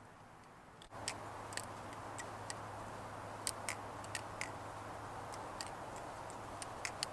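Irregular sharp clicks, a few a second and some louder than others, over a steady low hum, starting about a second in.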